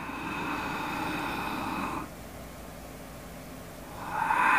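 A person doing Ujjayi breath, breathing through a narrowed throat: an ocean-wave-like hissing breath about two seconds long, a pause, then a louder breath starting near the end.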